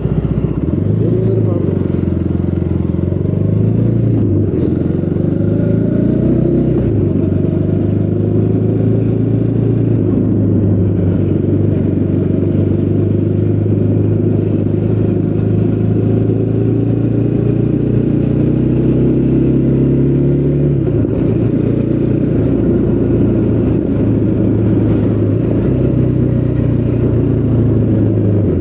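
Triumph Speed 400's single-cylinder engine through its stock exhaust, under way on the road. Its pitch rises and falls with the throttle over the first several seconds, then holds steady at a cruise, dropping about two-thirds of the way through before it steadies again.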